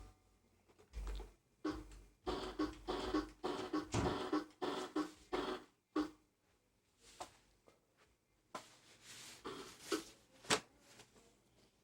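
Electronic keyboard sounding a rapid, uneven string of short clipped notes, many on the same low pitch, with a few sharper clicks in the second half.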